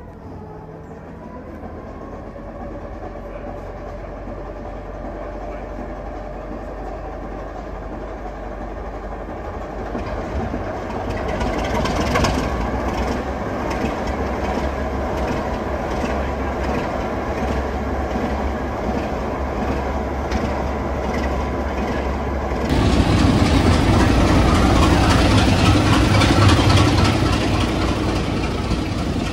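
Class 33 diesel-electric locomotive's Sulzer eight-cylinder engine running in the platform, growing louder about ten seconds in. Near the end it is suddenly much louder: the engine heard from aboard the moving locomotive, with the noise of the train on the move.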